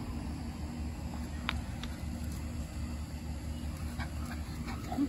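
Two puppies, an English Cocker Spaniel and an Australian Shepherd, play-wrestling: a few light clicks over a steady low rumble, with a short high puppy yelp right at the end.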